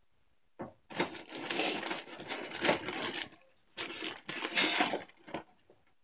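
Hands rummaging through a pile of plastic and rubber fidget toys, which rustle and clatter against each other in several bursts starting about half a second in.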